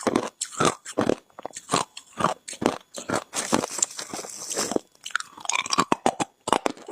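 Hard ice being bitten and chewed close to the microphone: a run of sharp, irregular crunches, with a stretch of softer grinding in the middle.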